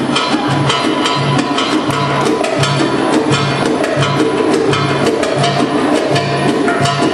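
Belly dance drum solo music: rapid, dense sharp drum strokes over deep bass strokes that come about every two-thirds of a second, in a steady driving rhythm.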